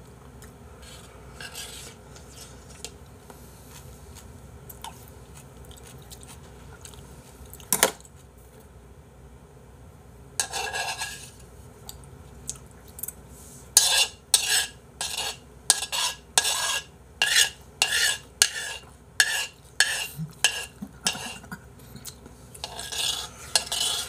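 Spoon scraping the inside of a bowl to get out the last of the porridge. There is a single sharp click about a third of the way in, then a quick run of scrapes, about two a second, through the second half.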